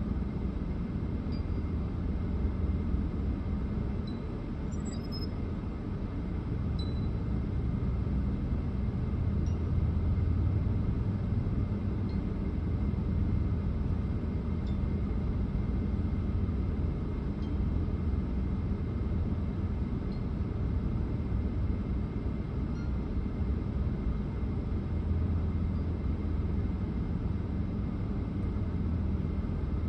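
Steady low rumble of a car, heard from inside the cabin, with a few faint light clinks.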